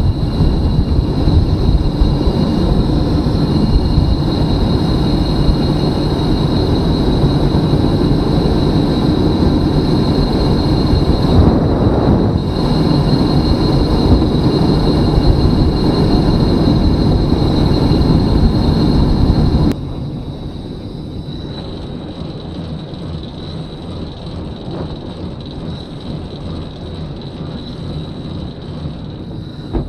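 Steady rumbling road and wind noise of a velomobile rolling at speed, with a thin high whine running through it. About two-thirds of the way through the noise drops suddenly to a lower, steady level.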